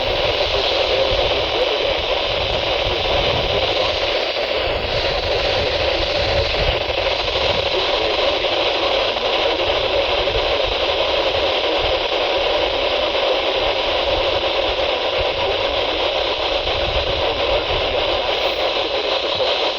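Weather radio receiver hissing with steady static, no voice or tone on the channel.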